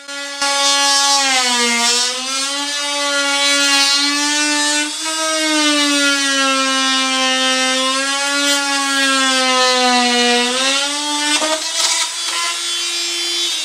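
Corded oscillating multi-tool undercutting the bottom of a wooden door frame and architrave, its blade guided flat on a laminate offcut. A steady, high buzzing whine with a rasp of cutting wood that joins about half a second in. The pitch sags as the blade bites and rises again near the end as the load comes off.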